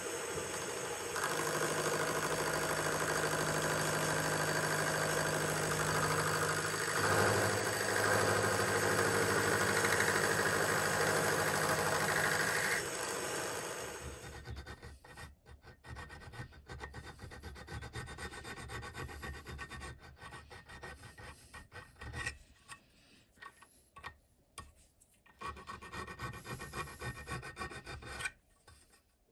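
A milling machine running and cutting a small metal part: steady machine noise that gets louder about a second in and stops about 13 seconds in. Then a hand file worked over the part held in a bench vice, in uneven strokes that end near the close.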